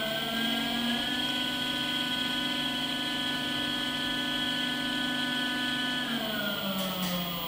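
Brushless electric trolling motor running in air with its propeller spinning, giving a whine of several tones. Its pitch climbs for about the first second, holds steady, then falls from about six seconds in as the motor slows.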